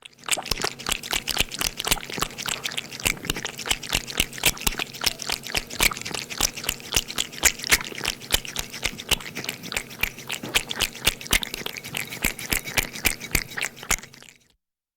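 A cat lapping up milk: a quick, steady run of wet tongue clicks, about four a second, stopping shortly before the end.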